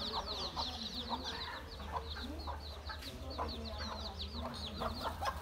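A brood of baby chicks peeping without pause in quick, high, falling chirps, with a mother hen's short, low clucks among them.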